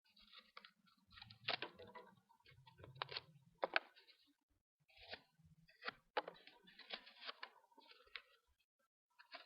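Folding knife blade cutting through cardboard with tape and paper on it: faint, irregular scraping and crackling strokes mixed with sharp clicks.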